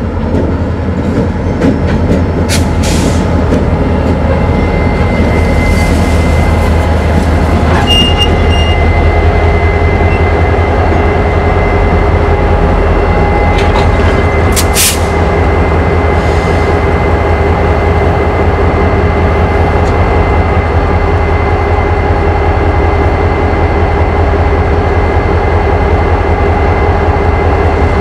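A consist of EMD GP-series diesel locomotives rolling past, their engines running with a steady heavy low drone. A thin high steady tone rides over it, and a couple of short sharp metallic clicks come about 3 and 15 seconds in.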